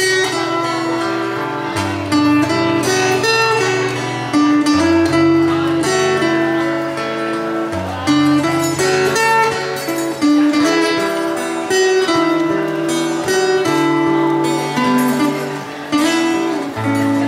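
A small band playing the instrumental introduction to a song. A plucked string melody, tagged as guitar, moves over a bass line that changes note about every two seconds, with no singing yet.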